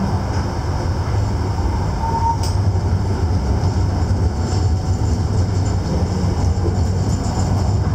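Düsseldorf Rheinbahn tram running along its track, heard from inside at the front: a steady low rumble, with one short click about two and a half seconds in.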